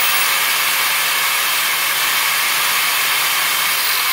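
DeWalt corded angle grinder with a wire wheel running free at full speed: a loud, steady motor whine with no load on it. Its pitch starts to drop at the very end as it is switched off.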